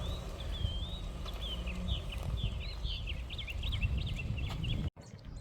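Small birds chirping in quick, twittering strings over a steady low rumble; the sound cuts off abruptly near the end.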